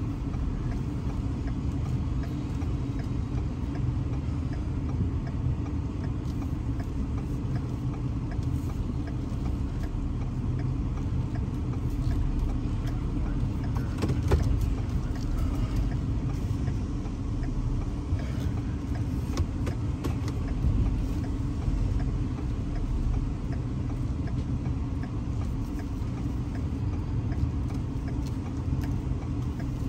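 Towing pickup truck's engine running with a steady low rumble, a faint click or two over it.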